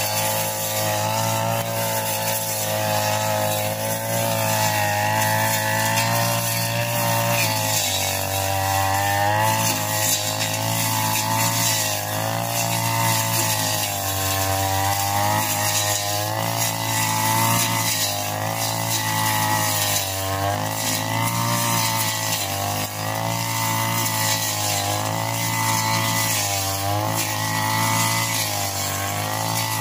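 Backpack brush cutter's engine running at high revs throughout, its pitch dipping and rising again every couple of seconds as the cutting head sweeps through the grass.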